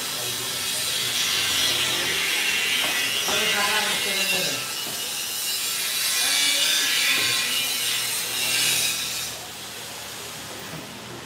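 Steady, loud hissing machine noise that drops away about nine seconds in.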